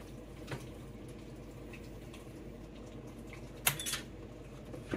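Electric pressure canner's lid being unlocked and opened: a faint click about half a second in, then a louder sharp clack with a second knock just after it, and one more knock near the end, over a steady low hum.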